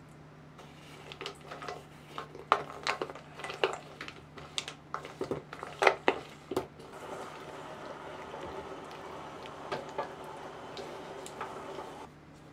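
Silicone spatula stirring chunks of dark chocolate and butter in a stainless steel bowl: the hard pieces knock and clack against the metal in quick, irregular strokes, then give way, about seven seconds in, to a steady soft scraping and smearing as the chocolate melts.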